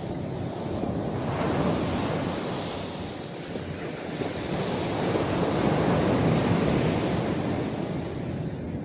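Sea surf washing onto the shore, the rushing noise swelling twice: once about a second in and again in the second half.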